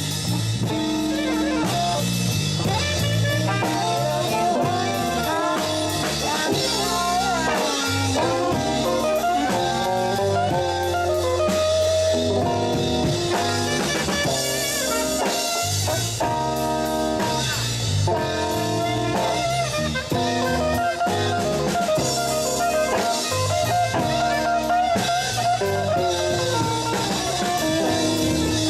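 Live band playing an instrumental blues passage: drum kit keeping a steady beat under bass, electric guitars and a bending lead melody line.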